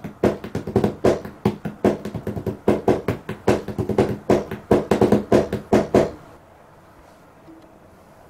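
Hands drumming a rhythm on a cardboard box: a quick, uneven run of dull knocks and taps that stops about six seconds in.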